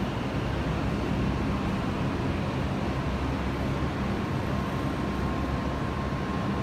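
Aerial tram cabin arriving at its base station on its cables: a steady mechanical hum and rumble from the tramway. A faint steady whine joins about four seconds in.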